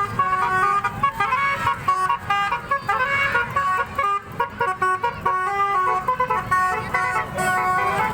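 Telolet horns, multi-trumpet musical air horns, playing a tune in short stepped notes, with several tones sounding together.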